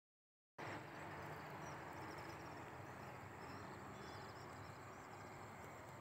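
Faint outdoor field ambience: a steady background hiss with small, high-pitched chirping calls scattered through it, starting abruptly about half a second in.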